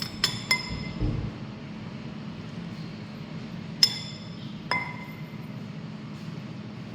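Hard items clinking, glassware or dishes by their ringing: four sharp clinks, two close together at the start and two more a little after the middle, with a dull thud about a second in.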